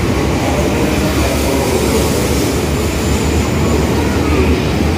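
JR East E5 series Shinkansen bullet train pulling out along the platform, a steady, loud rumble of the train running past.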